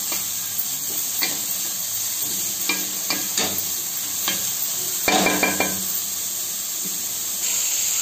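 Chopped vegetables (carrot, beans, cabbage, capsicum) sizzling in hot oil in a kadai over high flame while a spatula stirs and tosses them, scraping the pan about once a second, with a longer, louder scrape about five seconds in. The sizzle grows brighter near the end.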